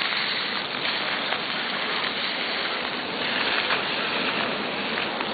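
Water fountain jets spraying and falling back, a steady rushing splash.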